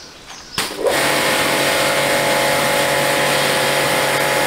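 Gocheng GC-CW130 2000-watt electric pressure washer starting up about a second in, then its motor and pump running steadily under the hiss of the high-pressure water jet.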